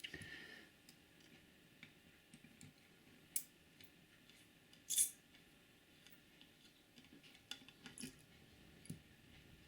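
Faint, scattered small clicks and taps of tiny parts and tools being handled while the wire connectors at a model railcar's rear bogie are worked on, with a sharper click about five seconds in.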